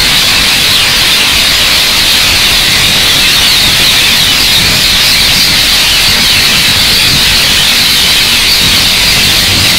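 A large flock of rose-ringed parakeets calling together from a roost tree, a dense, continuous mass of shrill calls with no single voice standing out.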